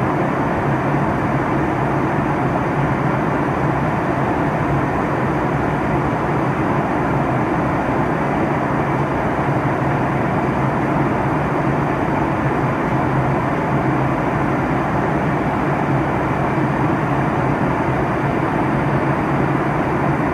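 Steady jet airliner cabin noise in flight: an even rush of engines and airflow with a low hum underneath, unchanging throughout.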